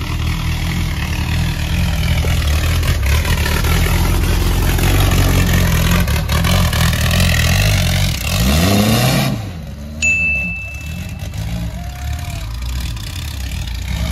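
Off-road buggy engine revving hard under load as the buggy climbs a steep dirt slope, its pitch rising sharply about eight seconds in and then dropping off suddenly. The engine runs quieter afterwards, with a brief high whistle about ten seconds in.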